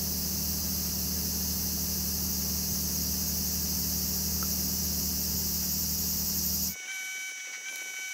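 A steady low mechanical hum under a continuous high-pitched drone, both cutting off abruptly near the end.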